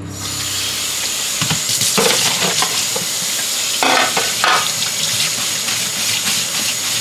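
Food sizzling and frying in a hot pan while it is stirred, with scraping and knocking of the utensil against the pan.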